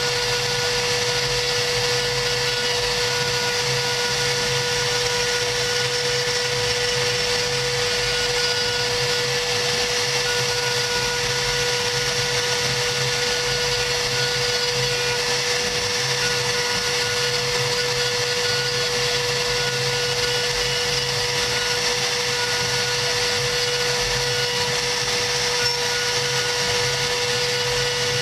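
CNC router spindle running with a steady whine while its bit engraves a rose outline into 3 mm cardboard, with a fainter higher tone that comes and goes.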